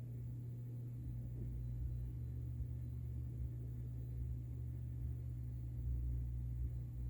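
A 52-inch Hampton Bay Carriage House II ceiling fan running on medium speed: a steady low hum. From about a second in, its draft buffets the microphone in an uneven low rumble.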